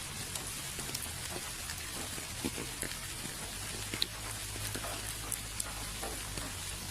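Steady rain with scattered individual drops ticking and pattering on surfaces, one sharper drop about four seconds in, over a low steady rumble.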